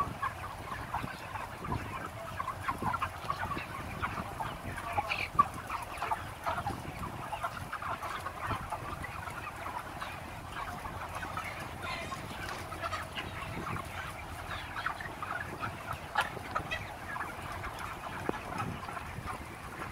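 A large flock of 35-day-old broiler chickens at harvest weight, clucking and calling over one another in a steady, dense chatter of short overlapping calls.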